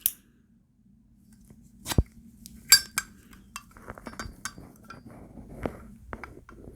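Metal Zippo lighters clinking and clacking as they are handled and set down: a few sharp clicks, one with a short metallic ring, then softer scattered handling noise.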